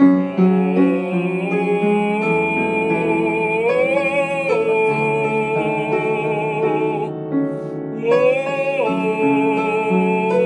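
A classically trained voice singing long notes with vibrato over piano accompaniment, sliding up to a higher held note twice.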